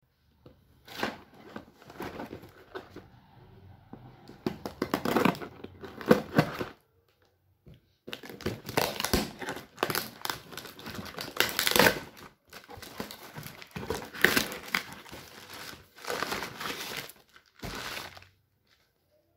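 A taped cardboard shipping box being torn open by hand: tape and cardboard flaps ripping and crinkling in irregular bursts, with a short pause about seven seconds in. Near the end, the plastic-wrapped contents rustle as they are pulled out.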